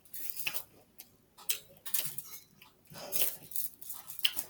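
A person chewing food close to the microphone, with irregular wet mouth smacks and clicks.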